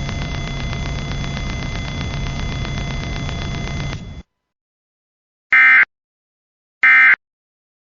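Steady radio static with a low hum cuts off suddenly about four seconds in. After about a second of silence come two short, loud, buzzy data bursts a little over a second apart: the EAS end-of-message (SAME "NNNN") code that closes the alert.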